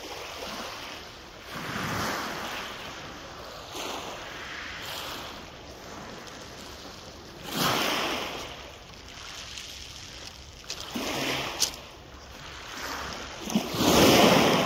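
Sea waves washing onto the shore, one surge about every six seconds, the last the loudest. A few short sharp clicks come near the end.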